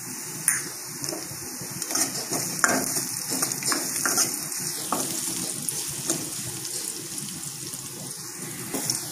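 Small onions, curry leaves and green chillies sizzling steadily in hot oil in an aluminium kadai, with a steel ladle scraping and clicking against the pan as they are stirred with turmeric powder; the clicks come several times in the first few seconds.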